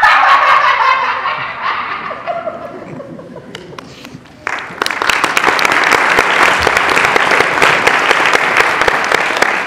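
Laughter fading over the first few seconds, then an audience breaking into applause about four and a half seconds in, many hands clapping steadily.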